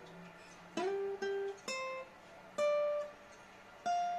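Acoustic guitar playing a slow single-note lead line high on the neck: five picked notes stepping upward in pitch, the first sliding up into its note.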